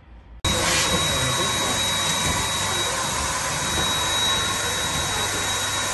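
Electric balloon pump running: a steady rush of blown air with a thin, high, steady whine, starting abruptly about half a second in.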